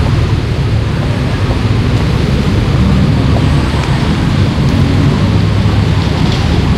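Street traffic: a steady low rumble of car engines and tyres on the road alongside.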